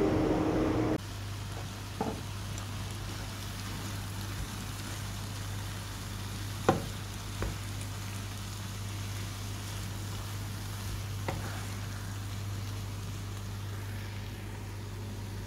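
Rice and vegetables frying in a pan: a faint steady sizzle over a low hum, with four sharp knocks of a wooden spatula against the pan, the loudest about halfway through. It is preceded by about a second of louder rushing noise that cuts off abruptly.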